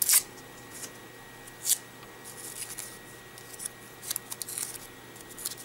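Folded paper crackling and rustling under fingers, with a sharp crackle at the start and another at about 1.7 s, then scattered small crackles.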